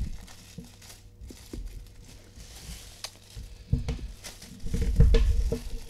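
Plastic packaging bag crinkling and rustling as its tape is cut and the coiled headphone cable inside is handled. It is quiet at first, then louder rustling with low bumps from about four seconds in.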